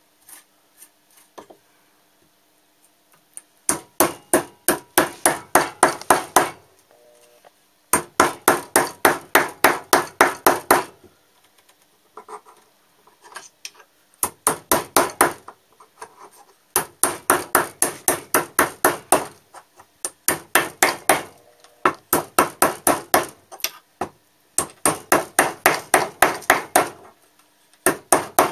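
Steel hammer driving a wooden-handled carving gouge into a block of wood: runs of sharp, evenly spaced taps, about four a second. The runs start about four seconds in, each lasts two to three seconds, and short pauses come between them.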